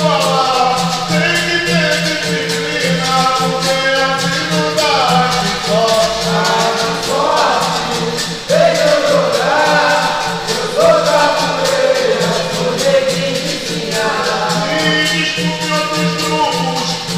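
Capoeira roda music: berimbau and pandeiro playing with hand-clapping and sung call and response. A group chorus sings at first, a lone lead voice takes over in the middle, and the chorus comes back near the end.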